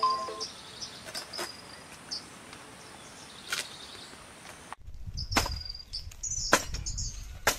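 Birds chirping over a quiet rural background with a few faint clicks; then, with wind rumbling on the microphone, a long pole strikes dry palm fronds, three sharp cracks about a second apart.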